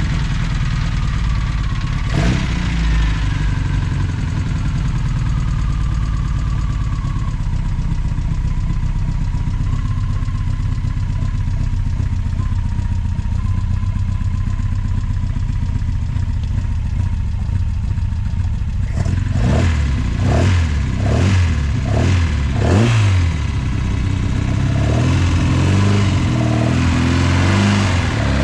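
Classic Mini's freshly built 1330 A-series four-cylinder engine running, its idle easing down over the first several seconds, then blipped on the throttle in a quick series of revs about two-thirds through, with more revving near the end.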